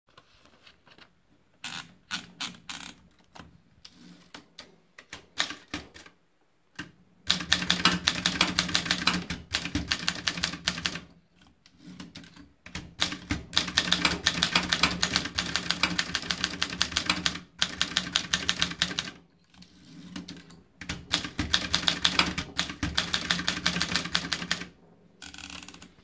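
Groma Kolibri manual portable typewriter: a few scattered clicks as the paper is wound in, then runs of quick, sharp keystrokes with short pauses between the typed lines.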